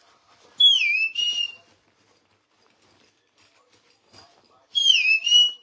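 Whistling twice, each a short note that falls in pitch and then levels off, the second a repeat of the first about four seconds later.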